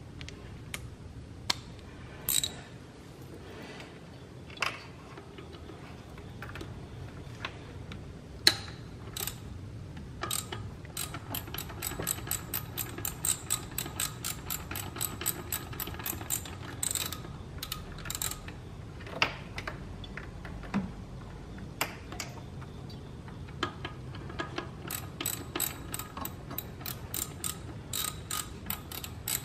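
Hand ratchet wrench clicking as it turns a bolt on an alternator mount in an engine bay. A few separate clicks and knocks come first, then long runs of rapid ratcheting from about a third of the way in, with a pause before a second run near the end.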